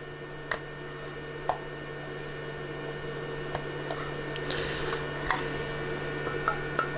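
Light clicks and a brief scrape from handling and picking at a 3D-printed PLA part, over a steady low hum.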